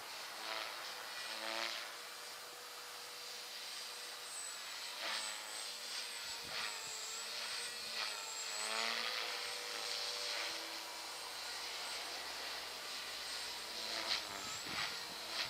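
Thunder Tiger Mini Titan E325 electric RC helicopter flying 3D manoeuvres: the whine of its motor and rotor blades swoops up and down in pitch again and again as the rotor is loaded and unloaded.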